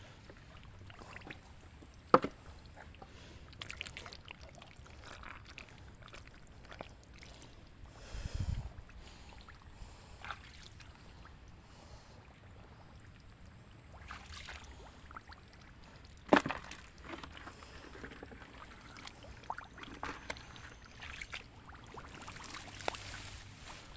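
Shallow muddy water sloshing and splashing faintly as people wade and grab for fish, with two sharp knocks, one about two seconds in and one about sixteen seconds in.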